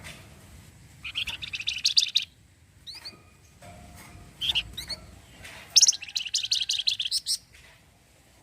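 Flamboyan songbird singing: two fast rattling trills (its 'cretet' song), each one to one and a half seconds long, with short upward-sliding chirps in between.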